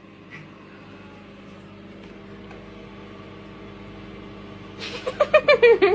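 Domestic cat giving a short run of quick cries that fall in pitch while being stroked, near the end, over a steady low appliance-like hum.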